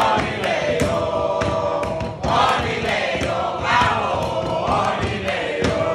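A group of people singing a chant together, with steady hand clapping about two or three claps a second.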